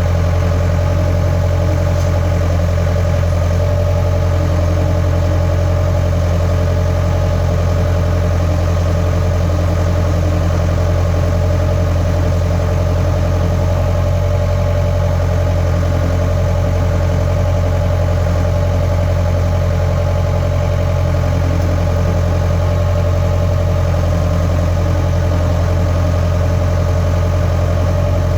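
Skid steer's engine running steadily at a constant speed, a loud low hum that neither rises nor falls.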